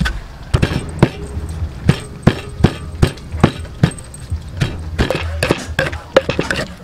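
Wooden pestle pounding in a wooden mortar, a steady run of dull knocks about two to three strokes a second, crushing ingredients into a red paste.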